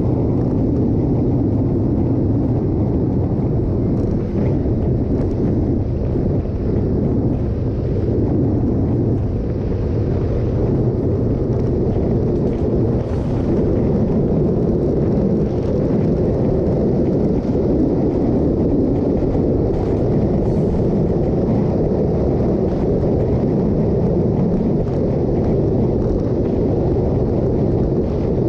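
Wind rushing over the microphone on a moving motorcycle, mixed with the bike's engine and tyre noise, steady and loud at highway speed, about 65 to 100 km/h.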